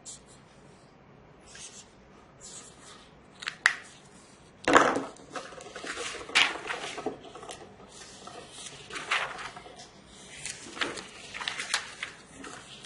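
Plocky marker pen writing on textbook paper in short scratching strokes, with paper being handled; a louder rustle or thump about five seconds in.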